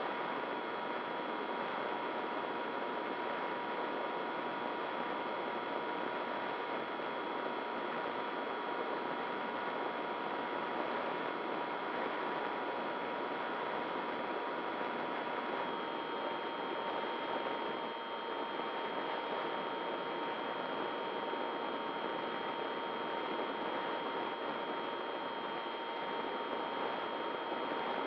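Onboard audio of a radio-controlled model plane in flight: the electric motor whines steadily at a constant throttle over a rush of air, its pitch stepping slightly lower a little past halfway.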